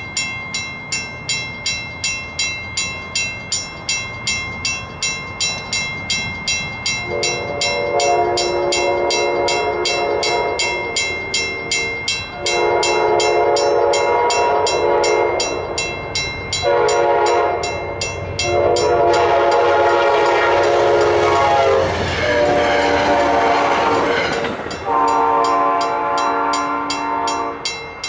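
A grade-crossing warning bell strikes steadily, about twice a second. From about seven seconds in, an approaching train's horn sounds a series of long and short blasts, the warning for the crossing. The train's rush is heard passing in the middle of the horn sequence.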